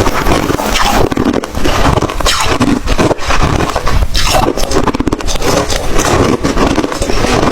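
Close-up crunching of white ice being bitten and chewed: loud, dense, irregular crackling crunches with no pause.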